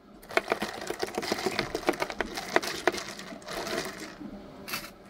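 A rapid, irregular run of small clicks and taps from hard objects being handled, thinning out after about three seconds, with a few short scraping noises and one last click near the end.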